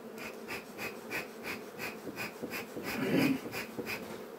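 Honeybees humming steadily around an open hive, with a quick repeated wheezy pulse about three times a second and a louder rustle about three seconds in.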